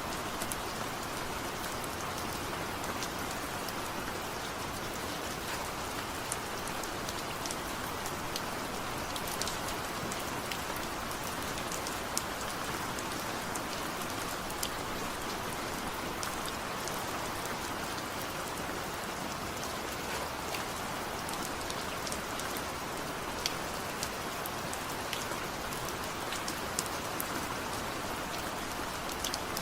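Steady rain, an even hiss with many individual drops ticking and pattering on a hard surface scattered throughout.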